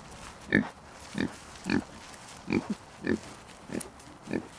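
A pig making short, regular grunts, about eight of them, nearly two a second, as it walks.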